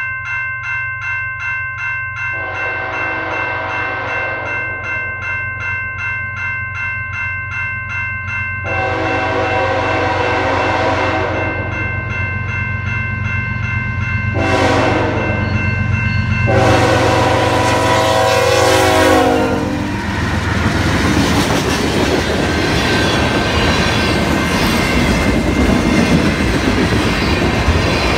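A railroad crossing bell rings rapidly while a CN diesel freight locomotive's air horn sounds the grade-crossing signal, long, long, short, long, over the low rumble of the engine. About 20 seconds in the horn stops and the freight cars roll past with a loud, steady rushing clatter of steel wheels on rail.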